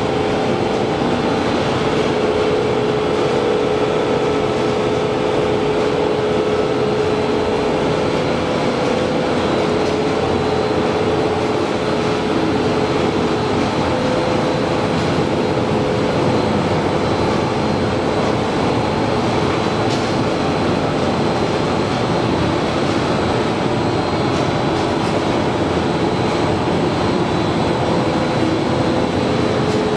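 Machinery of a nonwoven needle-punching production line running steadily: a constant mechanical noise with a steady hum, no pauses or changes.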